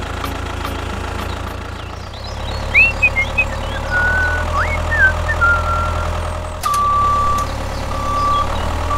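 Tractor engine running steadily with a low rumble. There are a few short chirping glides in the middle, and near the end a high steady beep sounds three times, like a reversing alarm.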